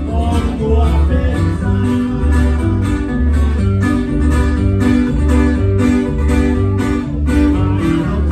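Ranchera-style band music: a plucked guitar melody over a steady bass line and a regular beat.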